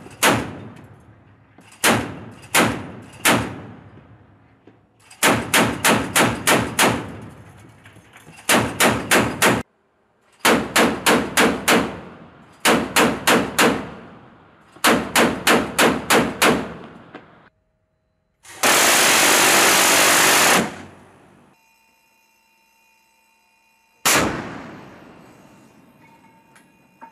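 A 25 mm machine gun firing: three single shots, then rapid bursts of four to six rounds at about four a second. After a two-second rush of loud noise, a 5-inch naval deck gun fires a single heavy shot about 24 seconds in, with a long fading tail.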